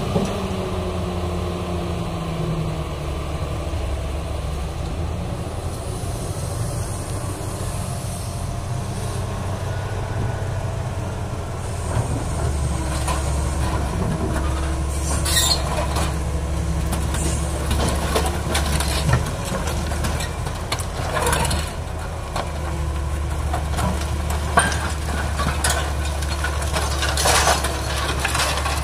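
Doosan excavator's diesel engine running under hydraulic load, louder from about twelve seconds in. In the second half come many sharp metallic clanks and scrapes as the steel bucket digs into and scoops a pile of scrap iron.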